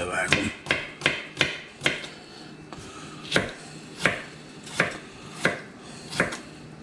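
Kitchen knife chopping potatoes: about eleven sharp knocks, six in quick succession over the first two seconds, then a short pause, then slower cuts about two-thirds of a second apart.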